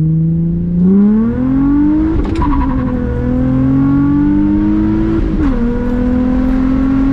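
Infiniti G35 sedan's 3.5 L VQ35DE V6 pulling hard under full throttle, heard from inside the cabin through an exhaust with the muffler cut off. The engine note rises steadily, drops twice as the driver upshifts the manual gearbox, about two seconds in and again about five seconds in, and climbs again after each shift.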